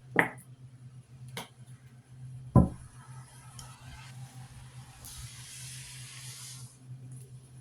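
Kitchen handling sounds while seasoning raw chicken: a few sharp knocks of containers, the loudest a thud about two and a half seconds in, then a short hissing shake for under two seconds past the middle, over a low steady hum.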